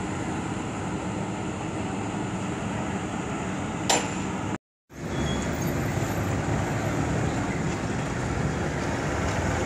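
Steady rumble of road traffic and vehicle engines, with a single sharp knock about four seconds in. Just after it the sound drops out for a moment, then the traffic noise carries on.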